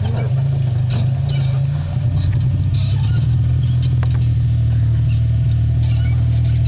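Toyota Tacoma 4x4 pickup's engine running steadily as the truck crawls down a steep dirt hill, with a few faint scattered ticks.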